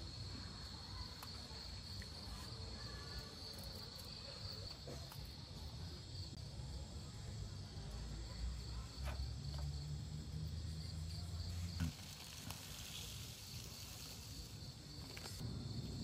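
Night insects chirring steadily in a high band, over a low rumble that swells in the middle. A few faint taps and one short knock about twelve seconds in.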